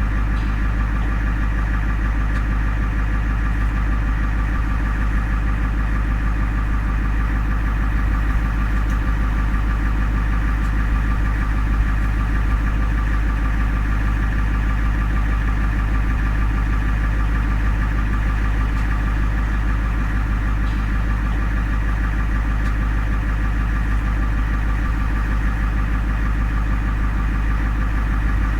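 Ambulance engine idling steadily, heard from inside the vehicle: a constant low hum with a steady mechanical drone above it.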